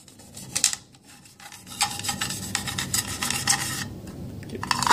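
A wet brush scrubbing inside an aluminium GI rifle magazine body: irregular rasping strokes of bristles on metal, getting busier and louder near the end.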